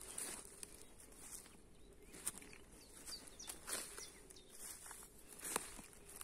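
Footsteps walking through grass, uneven soft crunching strikes, with faint bird chirps in the background.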